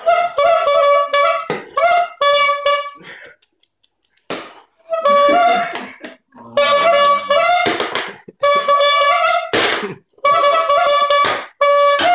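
Squeeze bulb horn honking over and over as a dog bites and squeezes its rubber bulb: short honks on one steady reedy note, in bursts with brief pauses, and one harsher, noisier blast about three-quarters of the way in.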